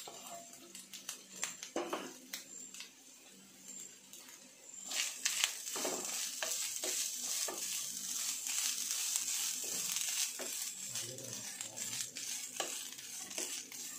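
Grated coconut roasting in hot coconut oil in a non-stick pan, stirred with a spatula: scraping strokes over a frying sizzle that swells about five seconds in.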